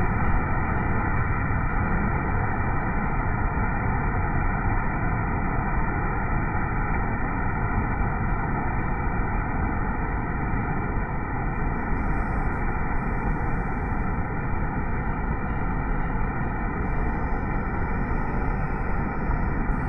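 Whitewater rushing over rocks in a creek rapid: a steady, deep rush of water noise.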